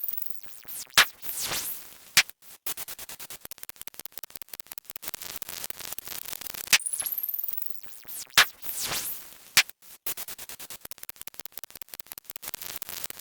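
A sequence of cartoon sound effects played twice over: a high rising zip, a sharp pop, a whoosh and a second pop, then a few seconds of fast, dense clicking. The sequence starts again about seven seconds in.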